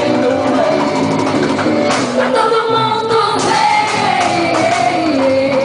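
Music with a voice singing a melody over steady accompaniment.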